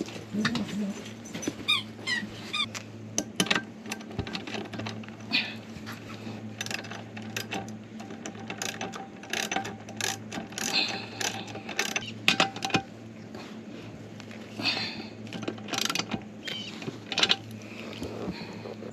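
Irregular metal clicks, clinks and rattles from work on an RV driver's seat mount, over a steady low hum.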